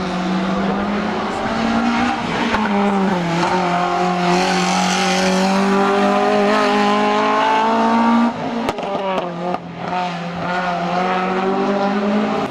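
Renault Clio RS III hill-climb race car's four-cylinder engine running at high revs, its note climbing steadily for several seconds. About eight seconds in it drops away briefly with a few sharp cracks, then picks up again.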